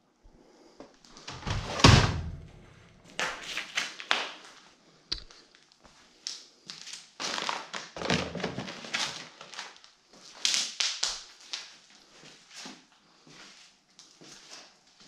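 Footsteps scuffing and crunching through paper and debris littering the floor, with a heavy thud about two seconds in.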